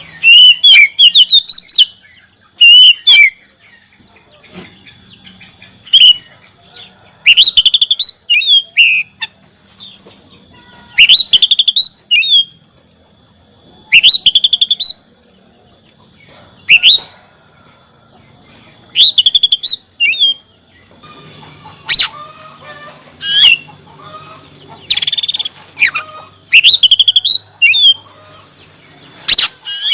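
Oriental magpie-robin (kacer) song: loud short phrases of quick rising whistles and fast trills, repeated every second or two.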